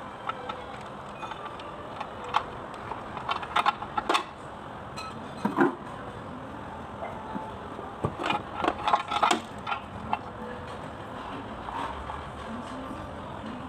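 Irregular sharp metallic clicks and knocks of tools and parts being handled during a tiller rotor overhaul, in small clusters over steady background noise.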